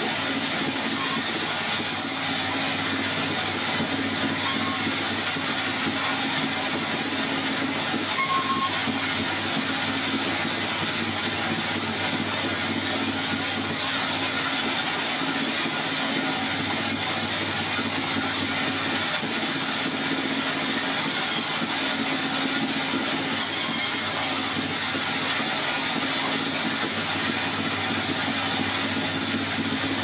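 Industrial band saw running steadily as logs are pushed through it, with a high hiss that comes and goes every few seconds.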